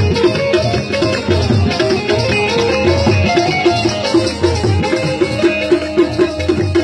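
Live South Asian folk music: a harmonium holding steady chords over a regular hand-drum beat, an instrumental passage without singing.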